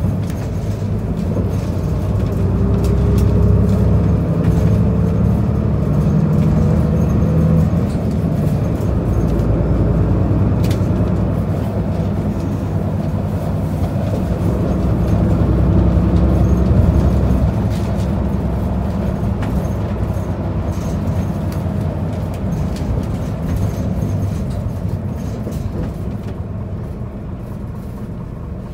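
Isuzu Erga city bus under way, heard from inside the passenger cabin: steady engine and road running noise. It grows louder past the middle, then eases off toward the end.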